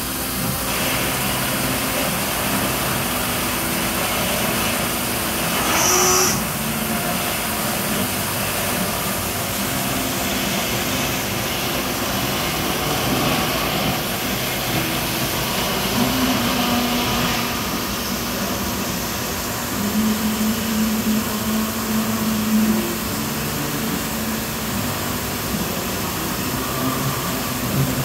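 Hanwha SL20H CNC Swiss-type sliding-headstock lathe running a machining cycle, coolant spraying over the spinning workpiece: a steady mechanical whir and hiss. A brief louder hiss comes about six seconds in, and short humming tones come and go later, around sixteen seconds and again from about twenty to twenty-three seconds.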